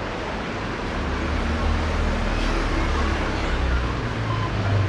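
A steady low rumble under a faint hiss, swelling a little about a second in.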